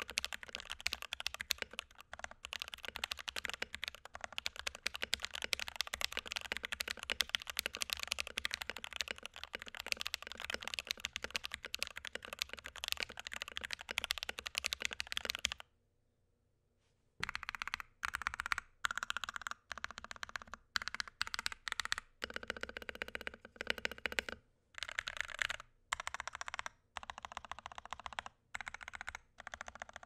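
Typing on an NK65 Milkshake Edition mechanical keyboard (aluminium plate, plastic case) with lubed and filmed NK Silk Yellow linear switches and Cherry PBT keycaps, on a deskmat. The keys clatter fast and steadily for about fifteen seconds. After a short pause come short runs of modifier-key presses with gaps between them. The board still sounds a little hollow.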